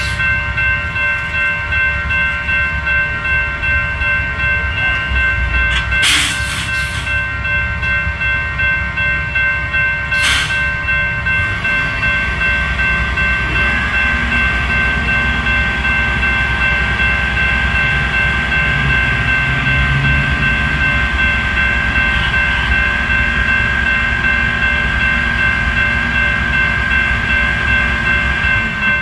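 Railroad crossing warning bell ringing steadily over the low rumble of the hi-rail crane truck's idling diesel engine. Two short bursts of hiss come about six and ten seconds in.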